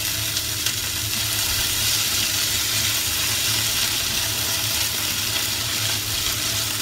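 Sliced napa cabbage sizzling steadily in hot oil in a wok as it is stirred and tossed with a wooden spatula.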